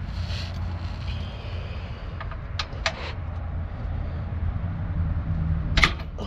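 Steady low rumble, with a few sharp metal clicks of hand tools at the truck's underside, two about two and a half to three seconds in and a louder one near the end.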